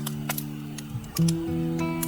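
Acoustic guitar music, with sustained notes that change to a new chord a little past halfway. Scattered sharp crackles of the campfire sound over it.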